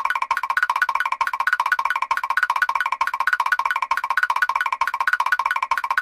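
Mr. Krabs walking sound effect from SpongeBob SquarePants: a rapid, even patter of short, high, hollow clicks like taps on a wood block, looping without a break.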